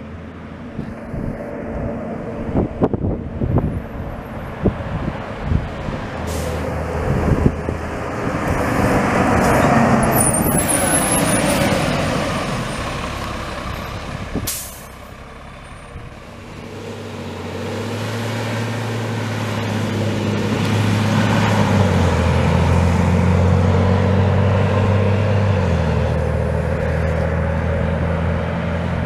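City transit bus going by and pulling away. A loud rush of engine and road noise peaks about ten seconds in, then a short sharp air-brake hiss about fourteen seconds in, then the bus engine runs steadily under load, its pitch stepping twice as the transmission changes gear.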